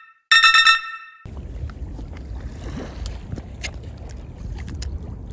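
A short, bright chiming sound effect, then wind rumbling on the microphone by the water, with a few faint clicks of a spinning reel being handled.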